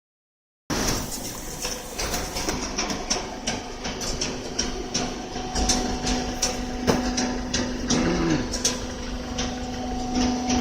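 Automatic carton baler machine running: a steady motor hum with frequent irregular clicks and knocks.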